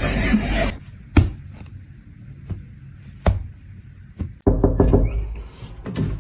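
Several sharp knocks or taps, single and a second or so apart, after a louder stretch of sound cuts off. Near the end a louder, busier stretch begins with more taps in quick succession.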